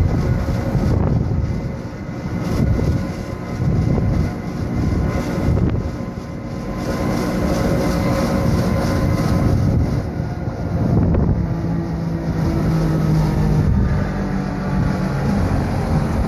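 Wengernalpbahn electric rack-railway train running, heard from inside the carriage: a steady rumble and rattle of the running gear with a thin steady whine. A lower hum joins about eleven seconds in.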